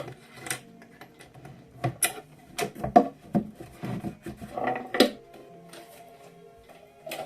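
Alpina manual typewriter being worked by hand: about a dozen irregular mechanical clacks and knocks, unevenly spaced, with the loudest around the middle. Quiet background music runs underneath.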